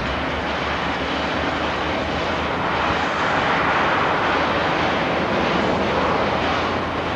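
Diesel lorry engine running steadily with a low hum, under a broad rushing noise that swells a little about three to four seconds in.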